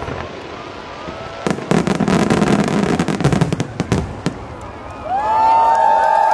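Aerial fireworks shells bursting and crackling, with a dense barrage of sharp cracks from about one and a half seconds in. About five seconds in, several long steady tones rise and then hold.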